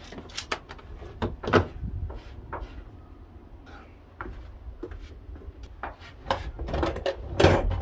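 Clicks, knocks and scraping of hands and a tool working on a plywood cabinet panel as its holes are filled with filler. The loudest knocks come about a second and a half in and near the end.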